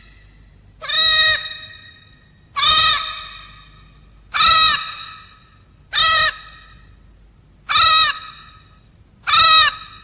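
Creature cry sound effect for the cartoon character Tashy 497: a short, caw-like call that rises and falls in pitch, repeated six times at an even pace of about one every 1.7 seconds.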